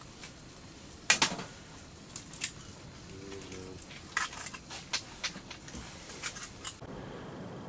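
Scattered pops and crackles from a pan of potatoes and sausage frying on a small tent stove, a sharp one about a second in and a quick run of them later on. Near the end this gives way to a steady outdoor hiss.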